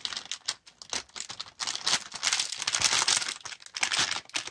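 Clear plastic cracker wrapper crinkling and rustling in a hand, in irregular bursts that grow louder after about a second and a half.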